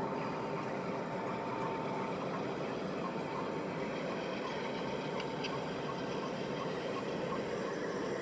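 G-scale model hopper cars rolling along the track, a steady rolling clatter of wheels on rails with light clicks repeating at short intervals and a faint squeal that fades in and out.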